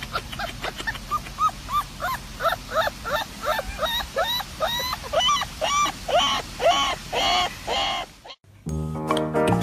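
A puppy giving a rapid run of short, high, squeaky yelps, each rising and falling in pitch, about three a second and growing louder. Near the end they stop and music with steady chords comes in.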